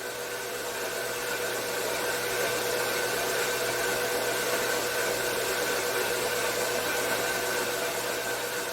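Central Machinery 4x6 metal-cutting bandsaw running steadily through a cut, its motor and blade making a continuous whir with a steady hum.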